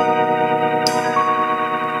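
Background music: sustained keyboard chords with a sharp percussive hit a little more than once a second.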